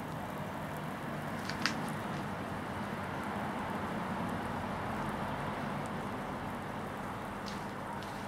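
Severely overloaded copper data cable cooking as its insulation burns and smokes: a steady sizzling crackle with a few sharp pops, the loudest about one and a half seconds in, over a low steady hum.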